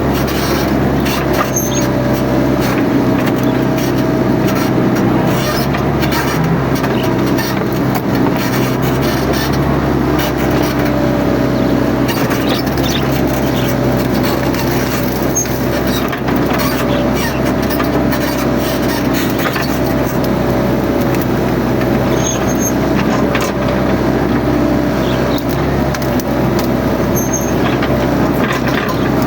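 Mini excavator's diesel engine running steadily under working load, with a wavering whine over it and scattered knocks and clanks as the machine works.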